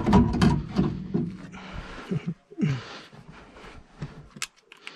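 Cordless drill/driver running in short bursts during the first second or two, driving in the screws that hold the gas manifold to the furnace burner assembly. The motor winds down twice shortly after, followed by faint handling clicks.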